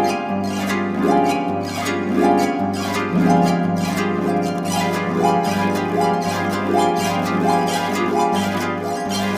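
Instrumental background music: plucked-string notes in a steady rhythm over a sustained bass line.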